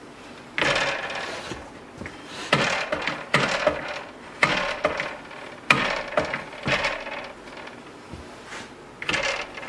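A new Bosch 12-inch glide miter saw being worked by hand with the motor off: about eight short scraping, sliding clunks of its metal parts in quick succession.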